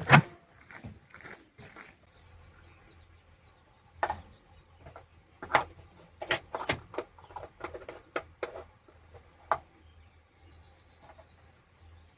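Irregular sharp clicks and knocks, the loudest right at the start. A bird twice gives a short high trill that ends in a held note.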